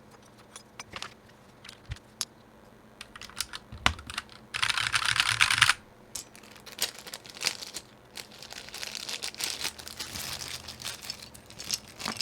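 GMMK 60% mechanical keyboard with unlubed Gateron KS-9 switches being typed on: scattered keystrokes, a dense burst of rapid key presses about five seconds in, then a steadier run of typing toward the end.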